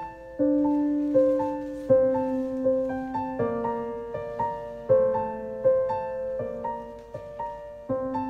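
Background piano music: a slow, gentle figure of single notes, each struck and fading away, over lower notes that change about every second and a half.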